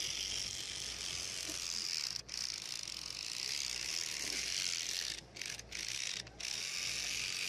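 Battery-powered spinning toothbrush buzzing steadily while a puppy mouths its brush head; the buzz drops out briefly a few times.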